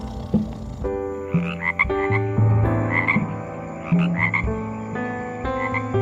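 Frogs croaking: low, drawn-out croaks overlapping, with short higher calls in pairs repeating about once a second.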